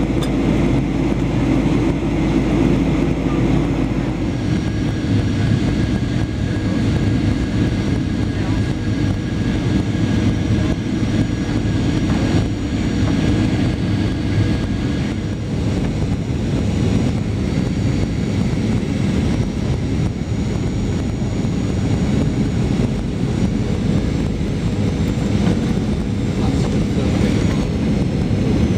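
Passenger airliner on final approach, heard from inside the cabin: a steady rush of engine and airflow noise with a faint high whine.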